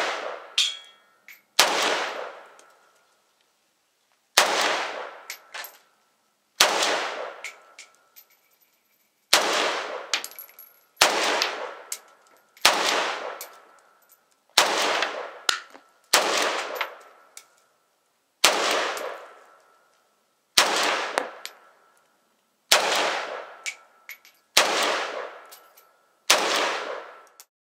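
Norinco MAK-90, a semi-automatic 7.62x39mm AK-pattern rifle, fired in about thirteen single shots at an unhurried pace, roughly one every two seconds. Each shot rings out and dies away over about a second.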